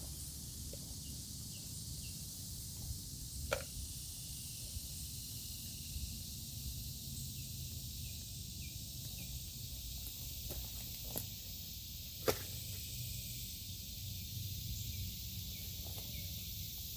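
Quiet outdoor background: a steady low rumble and a high hiss, with a few faint sharp clicks, the clearest about three and a half seconds in and again about twelve seconds in.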